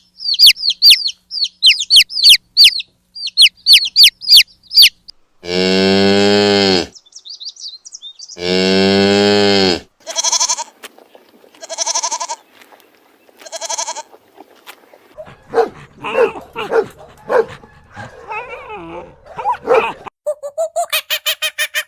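A run of different animal calls, one after another. First come quick bursts of high chirps, then two long, low cow moos. After those come three shorter, higher calls, then a rougher series of lower calls, and a fast repeating pattern starts near the end.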